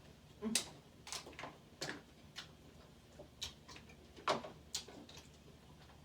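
Crab-leg shells cracking and snapping as they are broken open by hand: about a dozen irregular sharp cracks and clicks, the loudest about half a second in and just past four seconds.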